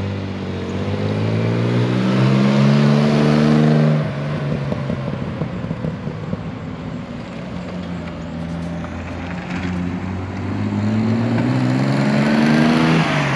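Rebuilt straight-six engine of a 1976 Triumph TR6 accelerating. Its note climbs for about four seconds, falls away abruptly, runs lower through the middle, then climbs again near the end.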